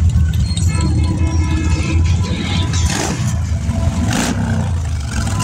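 Cruiser motorcycle engines rumbling steadily as a column of motorcycles rides along, with two brief rushes of noise about three and four seconds in.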